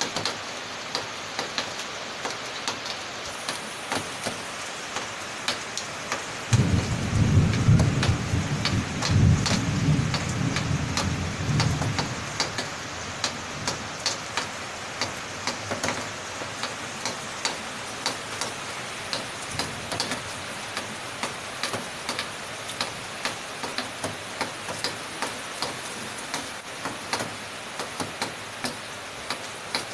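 Steady heavy rain, with frequent sharp drops tapping on a hard surface. A low thunder rumble comes in suddenly about six and a half seconds in, is the loudest sound, and dies away after about five seconds.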